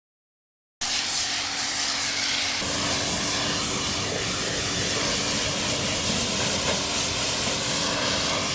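A steady machine noise starts abruptly about a second in: a motor running with a wide, even hiss, and a low steady hum that comes in about two seconds later.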